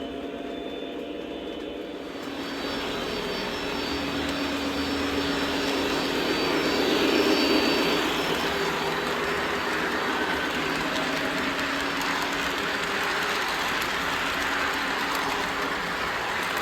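The onboard diesel sound of a Lionel Legacy Conrail SD50 model locomotive, playing through its speaker. The simulated prime mover revs up about two seconds in and then runs loud and steady.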